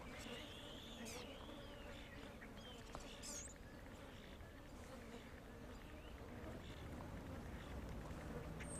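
Faint outdoor ambience: a few distant songbird calls with short up-and-down whistled notes, mostly in the first second and a half and again briefly around three seconds in, over a low steady hum.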